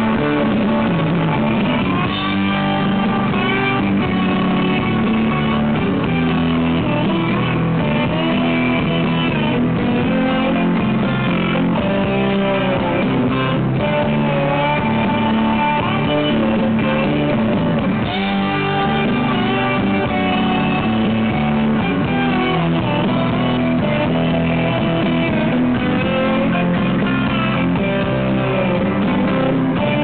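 Instrumental break of a slow Southern rock ballad with no singing: a gliding lead guitar melody over strummed guitars, bass and drums.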